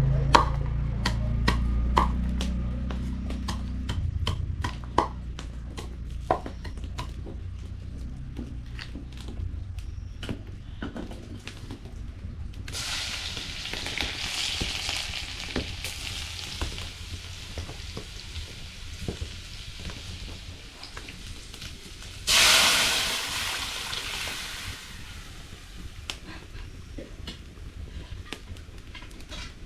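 Cooking in a pot. A utensil clicks and scrapes against the pot, then hot oil sizzles steadily from about halfway through. About three-quarters of the way in there is a sudden louder burst of sizzling that fades over a few seconds.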